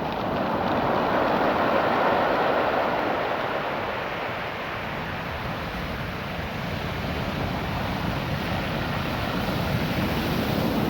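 Ocean surf washing up and back over a beach of small rounded rocks, a rushing noise that swells in the first few seconds, eases, and builds again near the end.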